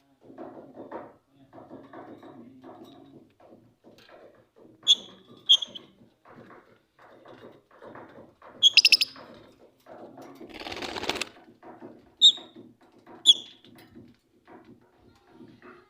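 A group of caged lovebirds chattering continuously, with several loud, sharp, high-pitched shrieks standing out above the chatter. A brief noisy rustle comes about two-thirds of the way through.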